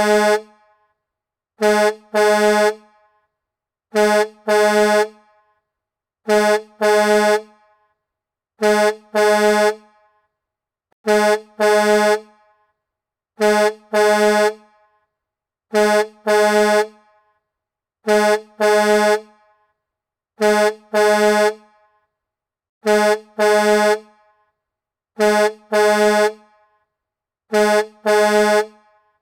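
Truck horn sounding in a double honk, a short blast then a longer one, repeated evenly about every two and a half seconds, with silence between the pairs.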